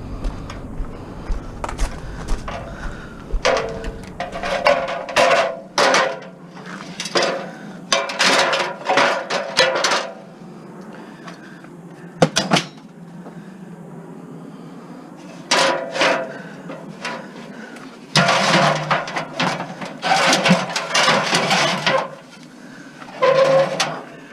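Scrap being handled and shoved into a van: repeated bouts of clattering and scraping as a cut-down ladder and other pieces are manoeuvred inside, with a single sharp knock about halfway through.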